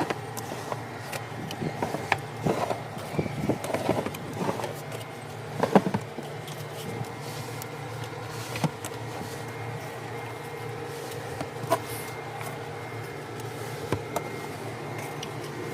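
Rat cages being stocked with cardboard paper towel rolls: irregular rustles, clicks and knocks, most of them in the first six seconds, over a steady machine hum.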